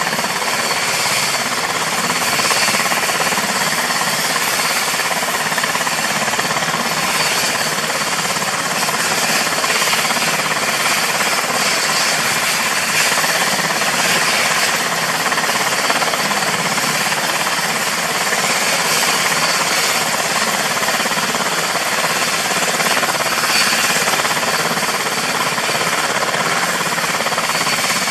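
UH-60JA Black Hawk helicopter running on the ground with its twin turboshaft engines and main rotor turning: a loud, steady rapid rotor chop over a constant high turbine whine.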